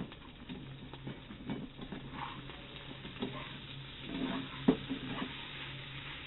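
Spatula scraping and tapping in a granite-coated nonstick frying pan, stirring boiled potato pieces into the masala, in irregular strokes with one sharper knock about three-quarters of the way through.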